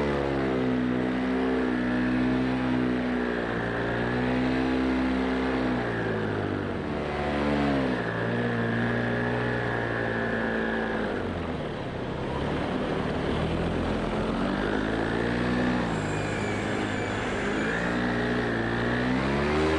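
Paramotor engine and propeller running in flight. The throttle is eased off and opened again several times, so the engine note falls and rises, dipping lowest about twelve seconds in.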